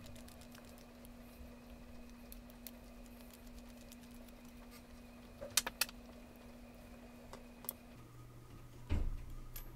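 Small screws being taken out of a camera lens with a precision screwdriver: faint scraping and a few sharp little clicks of metal on metal, a quick cluster about five and a half seconds in and a duller knock near the end as the lens body is handled. A faint steady hum sits underneath and drops in pitch about eight seconds in.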